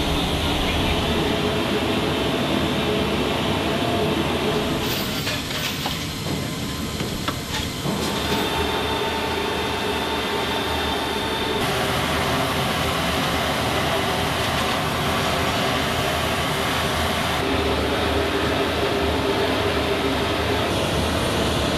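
Steady, loud machinery drone of aircraft ground-handling on a flight line and inside a C-17 cargo hold, with a held whine in it; its character changes abruptly several times as clips cut.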